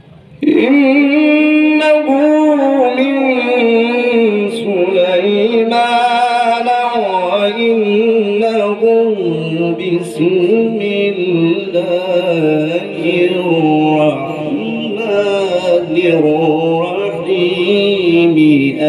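A male Quran reciter chanting in the melodic mujawwad style, with long ornamented notes that waver and glide up and down, amplified through a microphone and loudspeakers. The chant starts after a brief pause for breath at the very start.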